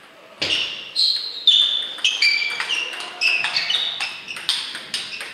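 Table tennis rally: the ball clicking off the bats and bouncing on the table in quick succession, each hit with a short ringing ping, a couple of hits a second, starting about half a second in.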